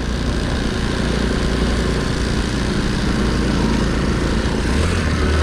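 Honda C90 step-through fitted with a Lifan 110cc engine, running steadily under way, heard from on board. About five seconds in the engine note steps up in pitch as the revs rise.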